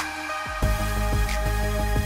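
Background music: an electronic track with a steady beat and sustained synth tones, its bass dropping out briefly at the start.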